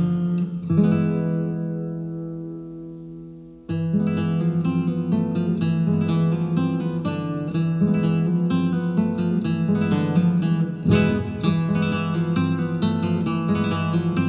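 Background music on acoustic guitar. A chord struck about a second in rings and fades away, then a quick, evenly paced run of plucked and strummed notes starts a little under four seconds in and carries on.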